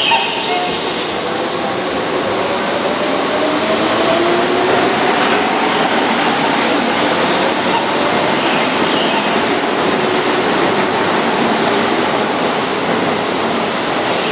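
Keihan 6000-series electric train pulling away from a station platform. Its 33-year-old traction motors whine in a rising pitch as it gathers speed, over the rumble of the wheels on the rails.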